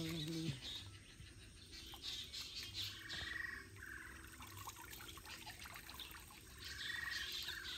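A frog calling twice, each call a short rapid trill, about three seconds in and again near the end. Faint splashing and dripping of water as a cast net is drawn up out of the shallow canal.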